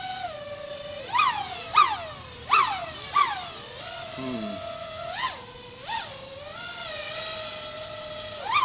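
Racing quadcopter's four brushless motors (iFlight XING 2207 1800kv on 6S) and propellers whining in flight. About six times the pitch shoots up and falls back as the throttle and yaw are punched, during a yaw test on a lowered yaw P gain.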